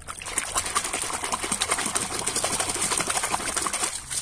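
A hand swishing and scrubbing a plastic toy truck in a bucket of water, making rapid splashing and sloshing that starts suddenly and stops just before the end.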